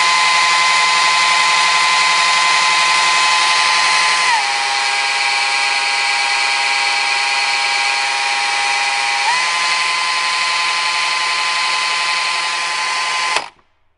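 Husqvarna T536 Li XP battery top-handle chainsaw running without load, a steady high electric whine with the chain at full speed. About four seconds in, the pitch drops and it runs a little quieter as the eco mode reduces chain speed. It rises back to full speed about five seconds later, and near the end it stops suddenly as the chain brake is engaged.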